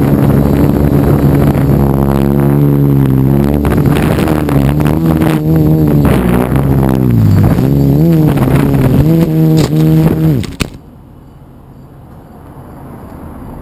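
Quadcopter's electric motors and propellers whining in flight, the pitch wavering up and down as the motor speed changes. About ten and a half seconds in, the motors wind down and cut off suddenly on an emergency landing, leaving a quiet steady hiss.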